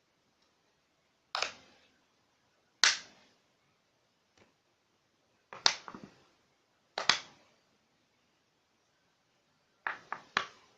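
A series of sharp knocks or clacks with short ringing tails, spaced irregularly: one about a second and a half in, another just under three seconds in, a couple around six and seven seconds, and a quick run of three near the end.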